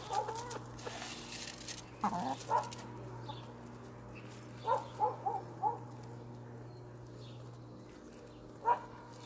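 Domestic hens clucking: a couple of short clucks, then four in quick succession about five seconds in, and one more near the end.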